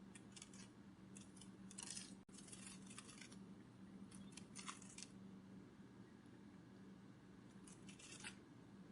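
Faint, dry fluttering rustles in short clusters, with gaps of a second or two between them, over a steady low hum: a butterfly wing-flutter sound effect.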